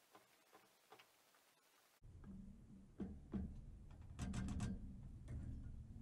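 A spatula stirring and tapping eggs in a frying pan on a wood stove: faint scattered ticks at first, then louder, with a low hum underneath and a quick run of sharp clicks a little past the middle.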